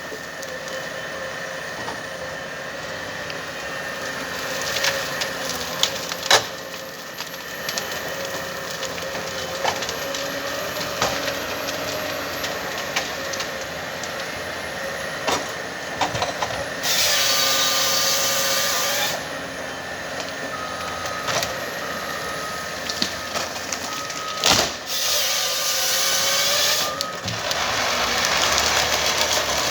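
Komatsu 931XC forestry harvester working with a steady hydraulic whine and engine hum. Wood cracks and snaps throughout, and three loud hissing bursts of about two seconds each come past the middle and near the end.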